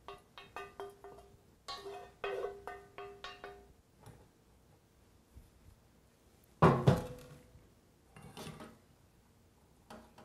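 Wooden spoon knocking and scraping ground meat out of a nonstick skillet into a metal strainer, the pan ringing with each quick knock through the first few seconds. About two-thirds in comes a loud metal clank as the skillet is tipped over the strainer, followed by a few softer knocks.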